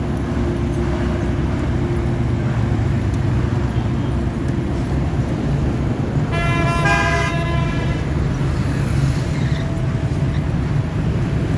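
A vehicle engine running steadily amid road traffic, with a horn sounding once for about a second around six seconds in.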